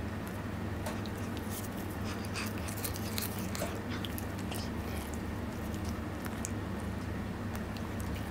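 A cat biting and chewing a fresh blade of cat grass: a run of crisp crunching snaps, thickest in the middle, over a steady low hum.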